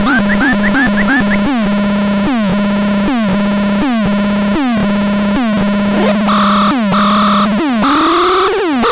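Electronic tone generator cycling through synthetic tone patterns: quick rising chirps for the first second or so, then falling sweeps repeating a little under once a second over a steady low drone, then a higher on-off pulsing tone about six seconds in and a slow rising glide near the end.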